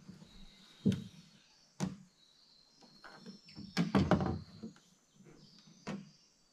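Hollow knocks and thunks of a canoe hull bumping against floating logs: single knocks about one and two seconds in, a tight cluster of heavier knocks around four seconds, and one more near the end.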